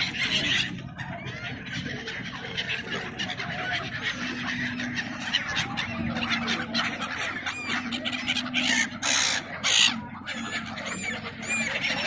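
A flock of gulls calling at once, many overlapping short cries, with two brief loud rushes of noise about three-quarters of the way through.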